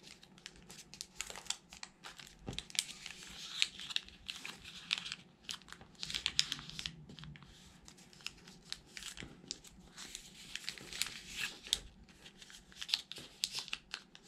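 A square of origami paper rustling and crinkling as it is folded by hand, the corners brought in to the centre. Irregular sharp crackles come as the fingers press and run the creases flat.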